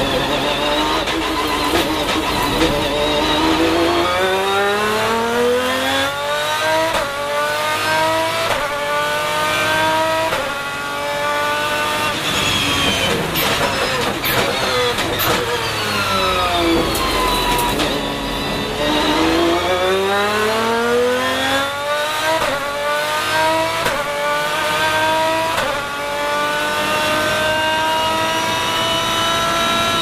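Lamborghini Murcielago R-SV GT1's 6.5-litre V12 heard from inside the cockpit, revving up hard through the gears with quick upshifts. About halfway it brakes down through the gears with a few sharp pops, then climbs through the gears again.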